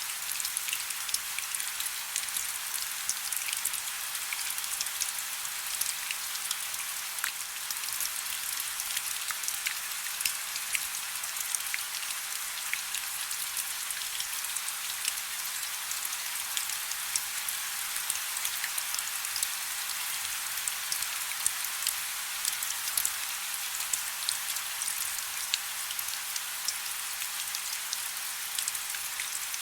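Soft steady rain: a continuous hiss dotted with many small, crisp drop ticks, with almost no low rumble.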